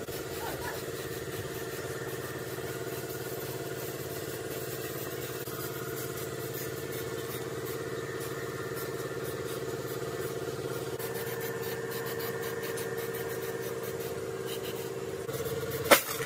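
A motor running at a steady pitch, with a sharp click near the end.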